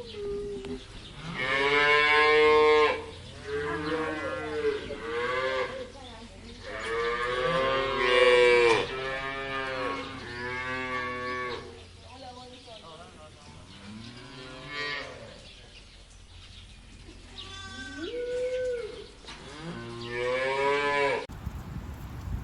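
Cattle mooing: a string of drawn-out calls, each about a second long, rising and falling in pitch.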